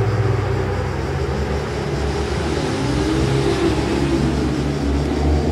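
Fiat 500 Abarth's 1.4-litre turbocharged four-cylinder, breathing through a titanium exhaust, driving past. The engine pitch rises and falls about halfway through as it accelerates and eases off.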